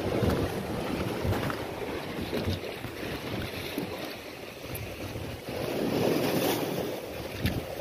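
Wind buffeting the microphone over the sea washing against the rocks below, swelling in a surge about two-thirds of the way through.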